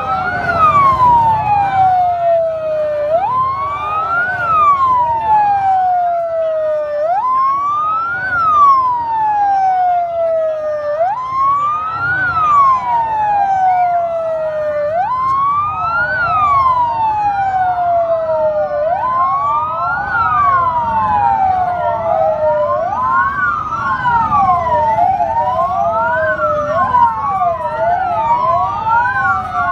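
Ambulance siren wailing in a repeating cycle, each cycle a quick rise in pitch and then a slow fall, about every four seconds. About two-thirds of the way through, a second siren joins out of step with the first, and the two overlap.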